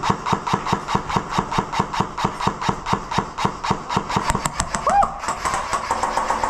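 Nemesis X9 airsoft gun firing a fast, even string of shots, about six or seven a second, which stops about five seconds in. It is a trigger being pulled very rapidly.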